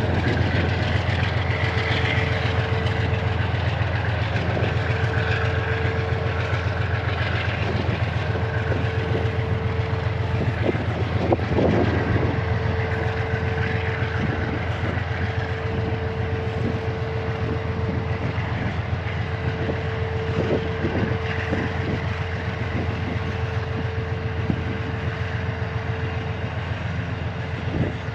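Aurizon 2800-class diesel locomotives hauling a freight train past: engines running with a steady low throb and a thin constant whine, with a brief louder noise about eleven seconds in.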